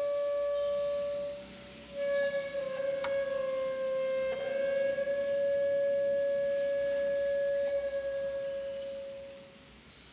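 Classical instrumental music: a single high note held long and steady, broken briefly about two seconds in, then sustained again and fading away near the end.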